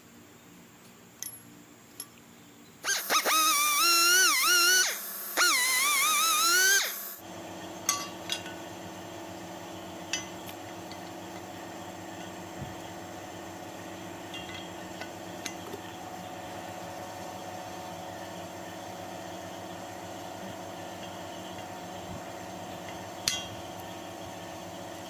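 A loud wavering pitched tone in two parts for about four seconds, then a steady hum with a few sharp metallic clinks, like tools or small metal parts being handled.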